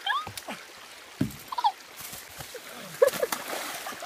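A boy falls from a rope swing into a shallow muddy creek. There is a heavy thump about a second in, then a sharp hit with a noisy wash near the three-second mark, and short yelps in between.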